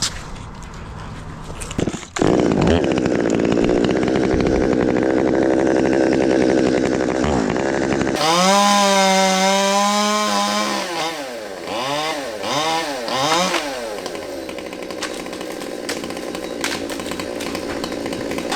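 Two-stroke chainsaw running hard through wood. After a brief drop about two seconds in, it comes back up to full speed. Around the middle its engine pitch falls and rises several times as it bogs in the cut and revs back up.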